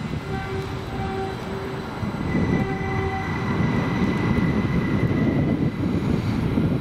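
Passing train: a rumble of wheels and engine that grows louder about two seconds in, with two short held tones in the first three seconds.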